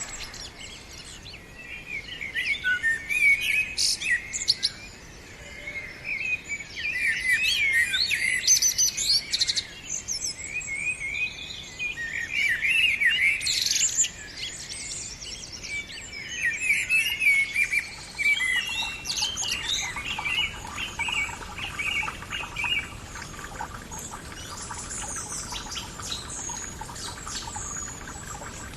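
Birdsong: several birds singing in repeated bursts of quick chirps and trills. A faint steady hum comes in underneath about two-thirds of the way through.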